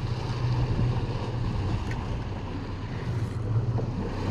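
Boat engine idling steadily, with wind buffeting the microphone.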